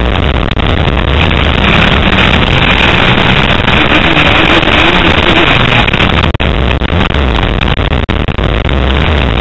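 Motocross bike engine heard from an onboard camera, running hard over a dirt track, mixed with heavy wind noise on the microphone.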